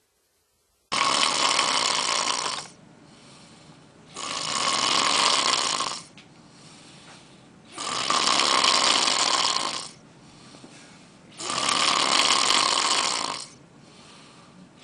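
A person snoring loudly in a slow, even rhythm: a long snore about every three and a half seconds, quieter in between. It starts suddenly about a second in, and there are five snores, the last starting near the end.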